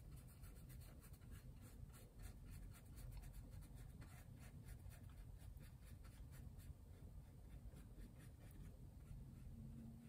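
Faint scratching of a fine paintbrush stroking paint onto a canvas panel in quick, short strokes that thin out near the end, over a low steady hum.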